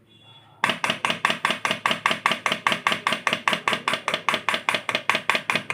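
Pro Aqua electromagnetic dosing pump clacking in a fast, even rhythm of about seven to eight strokes a second, starting abruptly about half a second in. The pump is working again after a failed 1-megohm resistor on its circuit board was replaced.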